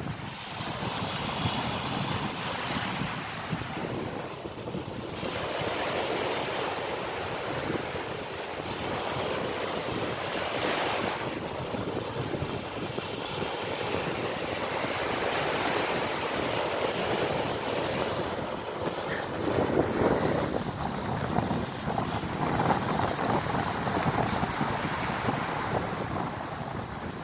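Small surf breaking and washing up the beach, with wind rushing over the microphone.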